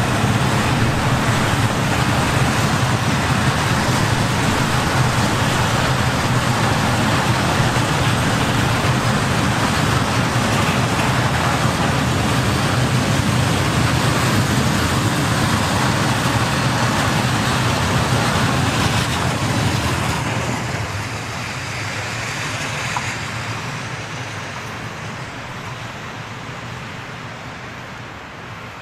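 A freight train of open-top wagons rolling past on the rails, a loud steady rumble of wheels on track. About twenty seconds in, the last wagons go by and the noise falls away, fading gradually.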